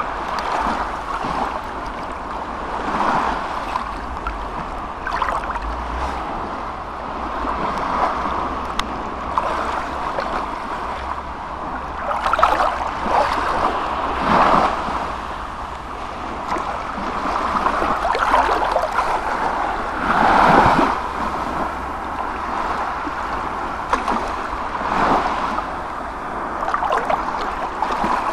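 Continuous rushing noise that swells and fades every few seconds, over a steady low hum.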